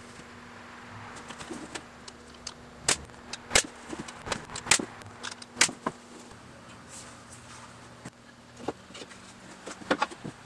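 Wooden boards being handled and set together as they are glued into a frame: a scatter of sharp clicks and knocks of uneven loudness, busiest in the first half and again near the end.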